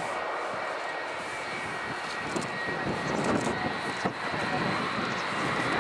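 Airbus A340-300's four CFM56 jet engines running at taxi power: a steady high whine over a broad rush of engine noise, growing a little louder toward the end.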